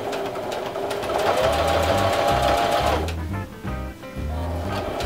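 Singer Heavy Duty sewing machine stitching through a curtain and trim, a fast, even clatter of needle strokes. It pauses about three seconds in and starts again near the end.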